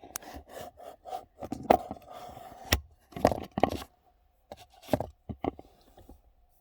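Irregular knocks, clicks and scrapes of hands and tools working a car's stock steering wheel that is stuck on its hub, about eight sharp knocks in all. A faint steady tone hums underneath.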